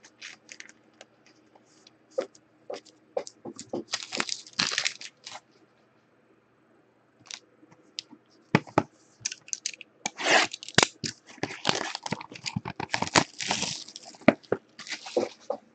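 Plastic shrink wrap being torn and crinkled off a sealed Topps Five Star baseball card box, in irregular crackling bursts with a pause of a couple of seconds before the middle.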